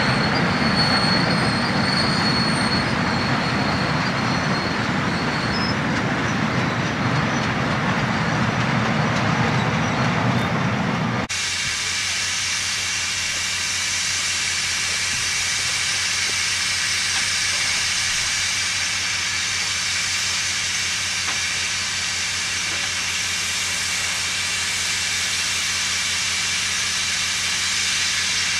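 Railway passenger coaches rolling past, a dense rumble of wheels on rail with a faint high wheel squeal in the first few seconds. About eleven seconds in it cuts abruptly to a steady steam hiss from a standing Garratt steam locomotive.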